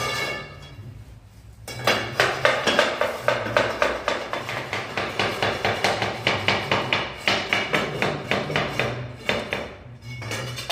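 Rapid tapping of a hand tool on ceramic tile, about four or five sharp knocks a second, as tiles are tapped into place along the wall. The tapping starts about two seconds in and stops shortly before the end, after a brief scraping squeak at the start.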